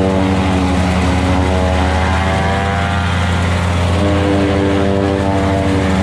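Engine-driven corn harvesting machine running steadily with a constant hum whose tone wavers slightly partway through.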